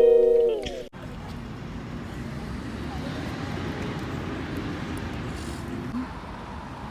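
A plucked guitar music intro ends abruptly about a second in. It gives way to the steady rumble of a running excavator engine.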